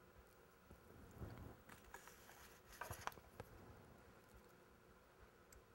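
Near silence with faint rustling and a few small, sharp clicks from hands working the tying thread and bobbin at a fly-tying vise, mostly in the first half.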